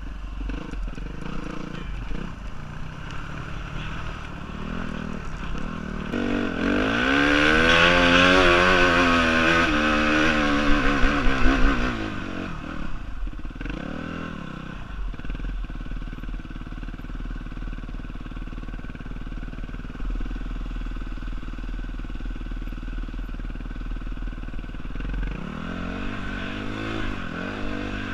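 Suzuki dirt bike engine running under a rider, revving up and down. It is loudest from about a quarter to under halfway in, with a few sharp knocks near the peak. It then settles to lower revs and picks up again near the end.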